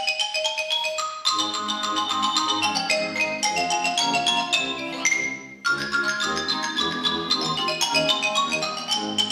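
Marimbas played with mallets in a fast passage of rapidly struck notes, with a brief break about five and a half seconds in.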